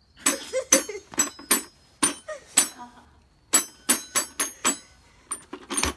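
Children's toy xylophone struck in quick, uneven strokes, each with a short bright ring, with a brief lull near the middle and bits of a voice among the strokes.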